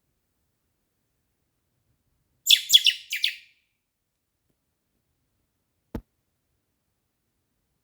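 A fledgling blackbird calling for its parents: a quick run of about five high chirps lasting about a second, a little over two seconds in. A single short click follows near the end.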